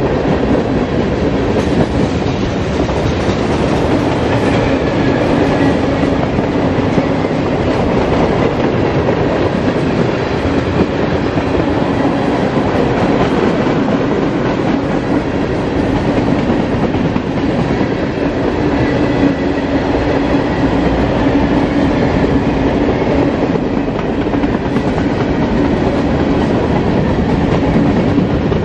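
Freight train cars, covered hoppers and tank cars, rolling past at steady speed: a continuous rumble of steel wheels on the rails.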